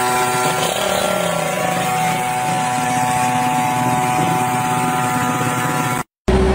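Small dirt-bike engine running steadily at an even speed. It cuts off suddenly near the end, and a different steady machine hum follows.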